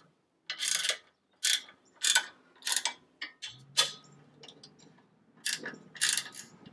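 Hand ratcheting wrench clicking in short strokes as it tightens the mounting nuts of a roller fairlead, about one stroke every half second with a pause in the middle.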